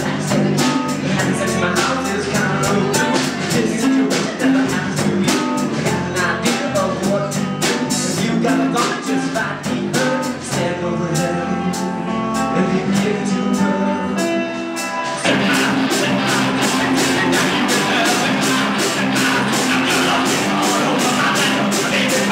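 A rock band playing live: electric guitar, bass guitar and drum kit with a lead vocal over a steady beat. About fifteen seconds in, the band turns fuller and louder.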